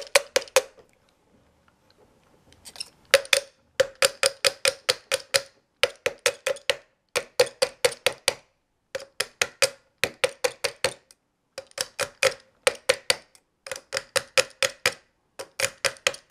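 Felt-faced mallet tapping the end of a Somfy tubular roller-blind motor to work a stuck end part loose. The taps come in quick runs of about six a second, with short breaks between runs and a pause of about two seconds near the start.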